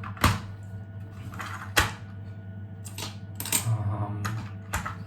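Hard 3D-printed plastic toy parts being handled, giving a few sharp clicks and taps, the loudest about two seconds in, over a steady low hum.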